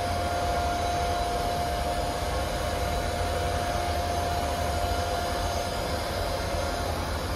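Steady machine noise: a deep rumble and hiss with a steady whine held on one pitch, unchanging throughout.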